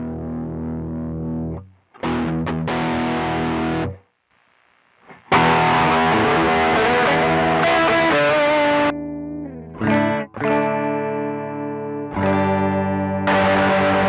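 Electric guitar played through a pedalboard of effects pedals: sustained chords and picked notes that stop abruptly about two and four seconds in, the second time followed by about a second of silence before louder, fuller playing resumes.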